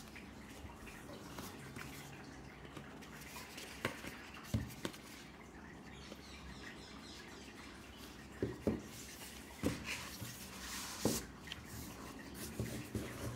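Cardboard Blu-ray digipack and paper booklet handled by hand: scattered short taps and rustles as the case is folded and turned over.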